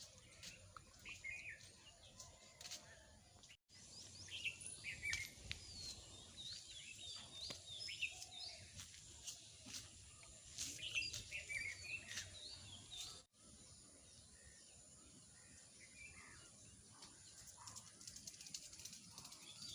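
Faint outdoor birdsong: many small birds chirping in short rising and falling notes over a light background hiss. It breaks off abruptly twice, as at a cut.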